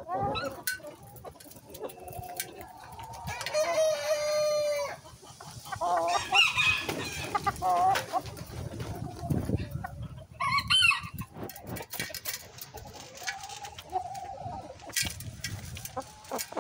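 Hens clucking and calling as they peck grain from a metal tray feeder, with many short sharp pecking clicks. One long drawn-out call comes about three and a half seconds in.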